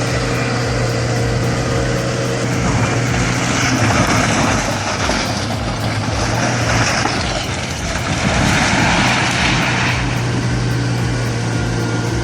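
A vehicle's engine running with a steady low drone, under a rushing noise that swells and fades several times.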